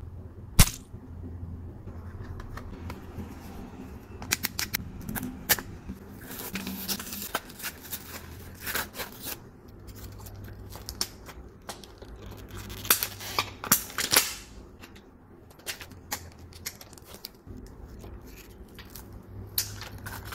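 Sticky, stretchy jelly squishy bear toys being squeezed and pulled by hand: irregular sharp clicks and crackles as the tacky jelly peels off the fingers and off itself, some in quick clusters.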